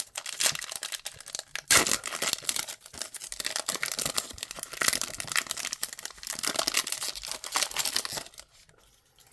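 A trading-card pack wrapper being torn open and crinkled in the hands: a dense crackling with sharp tearing snaps, stopping shortly before the end.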